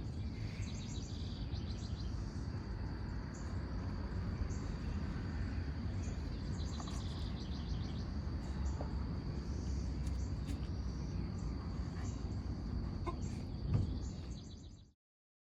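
Background ambience: a steady low rumble with a thin high whine and repeated short bird-like chirps over it. It cuts off suddenly near the end.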